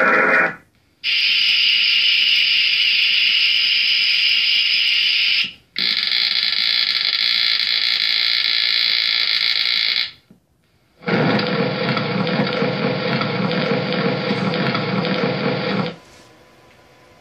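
Recorded sound effects played by a tabletop electrical-safety demonstration model during its excavator digging sequence. Three loud, steady stretches of sound, each four to five seconds long, are separated by short breaks. The first two are higher-pitched, and the last is fuller and deeper.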